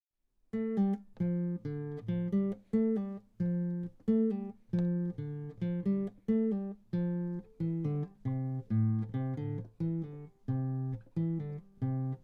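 Acoustic guitar playing a rhythmic run of chords, each struck sharply and left to ring briefly, about two a second, starting after about half a second of silence.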